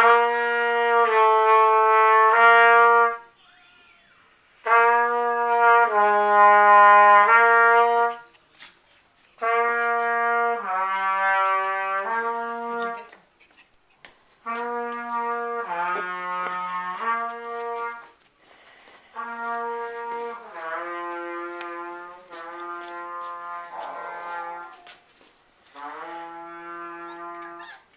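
Trumpet practice: short phrases of a few held notes each, with brief pauses between them. The later phrases are played more softly.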